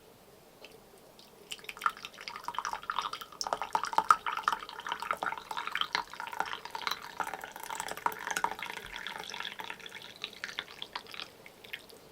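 Water dripping and trickling in a rapid, irregular patter of small drops, starting about a second and a half in and stopping near the end.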